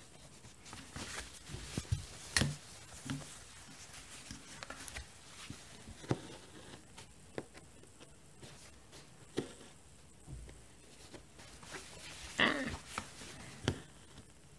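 Close-up handling of cross-stitch fabric and a plastic embroidery hoop during hand stitching: scattered soft rustles of the cloth, with small taps and clicks as the needle is worked and the hoop is handled. A brief louder sound comes near the end.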